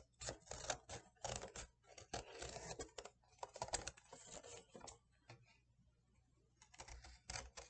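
Scissors cutting through thin cereal-box cardboard in a quick run of snips, pausing about five seconds in and starting again near the end.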